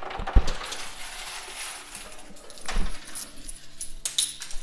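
Coins clinking and rattling against each other in a coin pusher machine as the shifting pile is shoved along, with a dull knock about half a second in.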